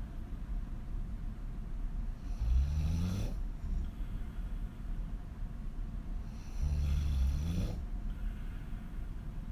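A woman snoring on her back with her mouth wide open: two loud snores about four seconds apart. Each is a low, rough snore about a second long that rises in pitch toward its end.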